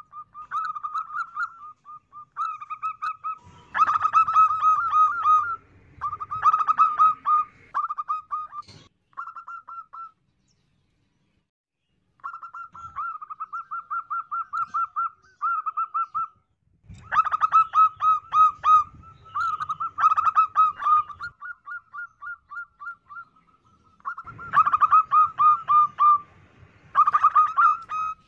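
A female zebra dove (perkutut) singing: phrases of rapid, staccato cooing notes, each phrase lasting one to two seconds and repeated again and again, with a pause of about two seconds near the middle.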